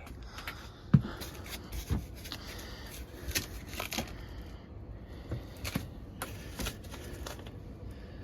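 Scattered handling noises: irregular clicks, light knocks and rubbing, with a sharper knock about a second in.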